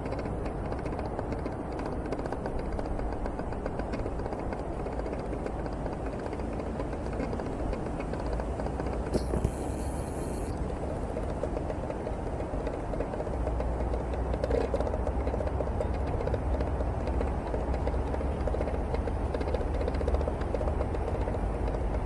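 Steady low rumbling background noise with no distinct events, and a brief high hiss about nine seconds in.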